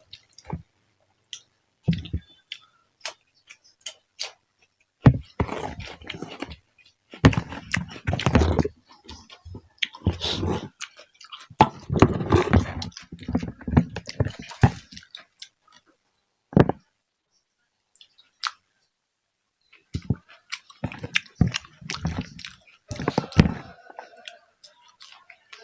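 A person eating close to the microphone: chewing and crunching in irregular bursts, with short clicks and quiet pauses between mouthfuls.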